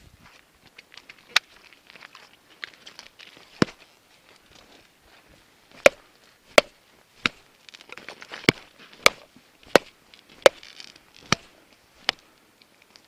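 Ice being chipped with a hand tool: about a dozen sharp, hard knocks on ice. They are few at first, then come in a steady run of roughly one a second through the second half.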